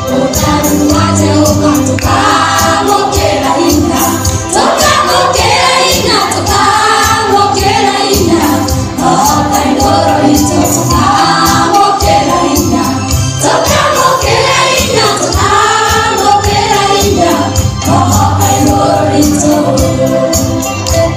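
Gospel worship music: many voices singing together over a steady beat.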